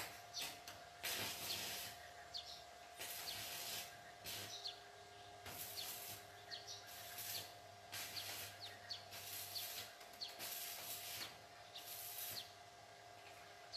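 Faint electric arc welding on a steel house-grille frame: about a dozen short bursts of crackling hiss, each under a second, with brief pauses between them as the welder lays short tack welds.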